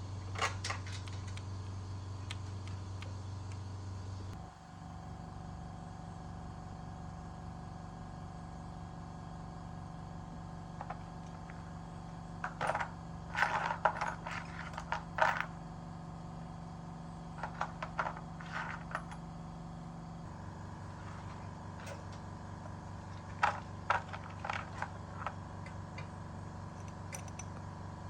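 Light metallic clinks and rattles in a few short clusters, as of small metal parts or tools being handled, over a steady mechanical hum that shifts in tone twice.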